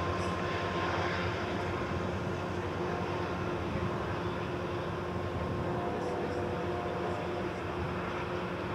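Norfolk Southern diesel-electric locomotive working hard under heavy throttle as it approaches, a steady low engine drone that eases slightly toward the end.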